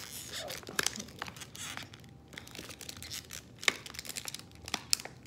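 Sterile paper-and-plastic package of IV tubing being opened by hand: tearing and crinkling, with scattered crackles and a few sharp clicks.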